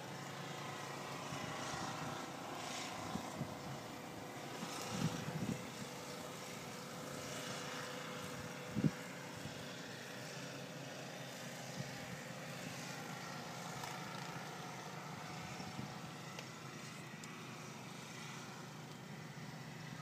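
Steady distant engine drone, with a few knocks about five seconds in and one sharp click near the middle.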